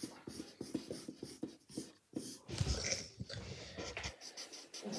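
Small scratches and taps of drawing with markers on paper, with a low rumble from about two and a half to four seconds in.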